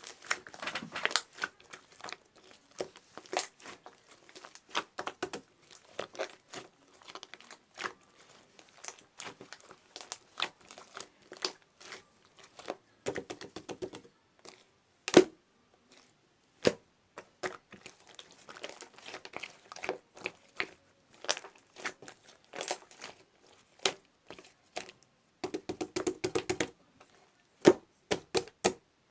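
Irregular crinkling and clicking handling noises, with a few sharper, louder clicks, one about halfway through and two near the end.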